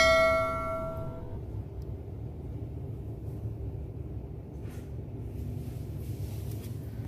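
Subscribe-button bell chime sound effect ringing out and fading over about the first second, followed by a steady low rumble of ambient noise.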